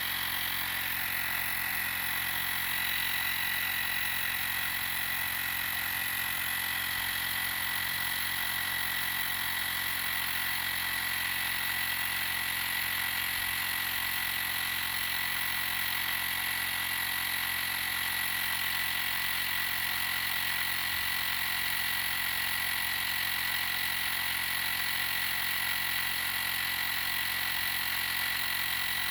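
TackLife portable tire inflator's small electric air compressor running steadily while pumping up a car tire, a constant high-pitched whine over its buzz.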